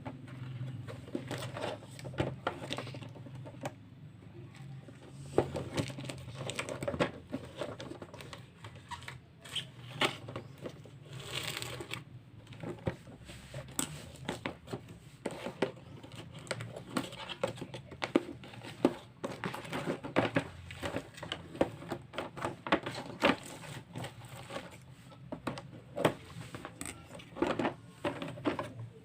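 Parcel packaging being opened by hand: irregular crinkling, rustling and tearing with scattered clicks and taps, and one longer tearing or rustling noise about eleven seconds in. A steady low hum runs underneath.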